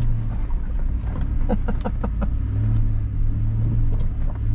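Land Rover engine running at low trail speed with a steady low drone that grows a little louder in the second half. A few light knocks and rattles come between about one and two and a half seconds in.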